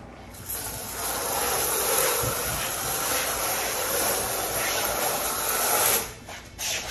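A notched trowel scraping and combing thinset mortar across the back of a large porcelain tile panel, a steady rasping scrape. It starts about half a second in and stops abruptly about a second before the end.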